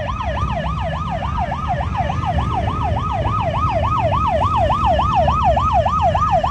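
Emergency vehicle siren in a fast warble, its pitch sweeping up and down about four times a second over a low rumble.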